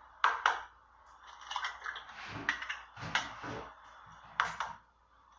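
Eggs being knocked open and cracked into a blender jar: two sharp knocks, then a run of smaller cracks and clicks of shell breaking.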